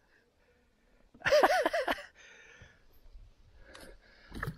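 A man's short wordless vocal sound, its pitch wavering up and down, about a second in. Faint clicks and a low thump follow near the end.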